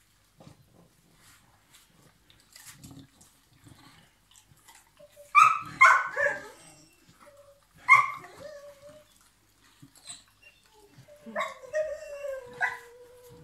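English bulldog barking in short sharp yelps a few times, then letting out one long whine near the end that slowly falls in pitch, begging for chicken held out in a hand above it.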